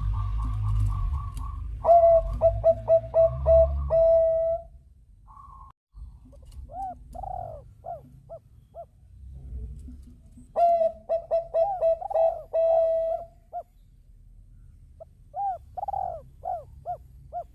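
Zebra dove (Bangkok song strain) cooing: four bursts of quick staccato coos with pauses between them, some phrases ending in a longer held note. A low rumble runs under the first few seconds.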